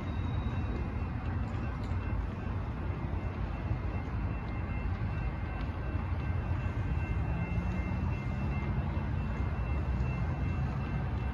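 Steady low rumble of road traffic as cars drive across a railroad grade crossing. A car's engine note rises from about seven seconds in.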